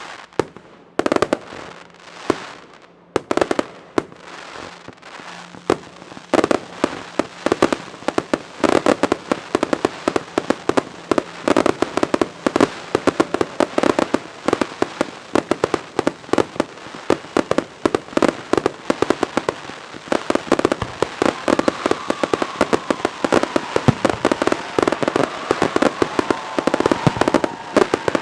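Fireworks display: a few separate bangs at first, then a dense, rapid barrage of bursting shells and crackling reports that keeps building, with a faint whistling joining in about two-thirds of the way through.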